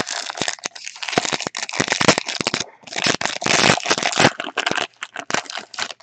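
Wrapper of a 2018 Panini Unparalleled football card pack crinkling loudly as it is handled and opened, in two long stretches with a short pause a little before the middle.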